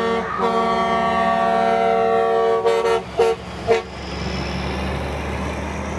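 Semi truck's multi-tone air horn: a quick blast, one long blast of about two and a half seconds, then two short toots. A truck engine rumbles steadily underneath as it passes.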